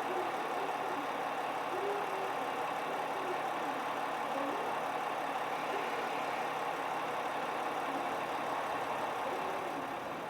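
Steady running of an idling engine, even and unchanging, easing off slightly near the end.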